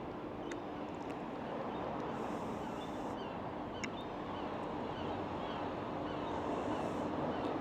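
Outdoor background rumble with a steady low hum, and small birds chirping repeatedly over it.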